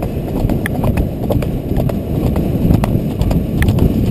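Horse's hooves clip-clopping on a gravel track, heard from the saddle as quick, sharp strikes several times a second over a loud low rumble.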